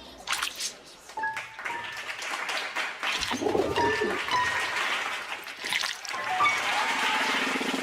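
Cartoon chase music with comic sound effects: short whistle-like blips, quick swishes and a bending squeaky squeal.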